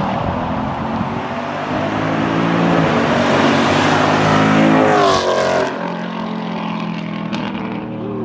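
Dodge Scat Pack's 392 HEMI V8, with gutted catalytic converters and a mid-muffler delete, driving past at speed. The exhaust note builds as the car approaches, is loudest about five seconds in, then drops in pitch and fades as it pulls away. It sounds nasty.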